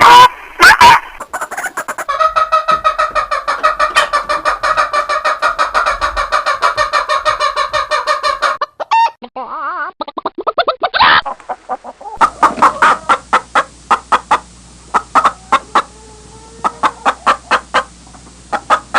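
Hens clucking. A fast, even run of clucks lasts several seconds, then after a short break scattered single clucks follow.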